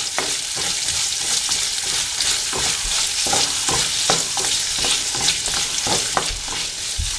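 Chopped red onion, ginger, garlic and chillies sizzling in hot oil in a black wok as a spatula stirs them. The spatula scrapes and knocks against the pan irregularly, about twice a second, over a steady hiss.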